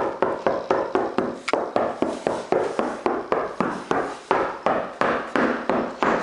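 A hand knocks rapidly on the sheet-metal roof of a Chevy Tahoe, about four knocks a second. It is a test of how the roof sounds now that its inside is lined with Dynamat sound deadener.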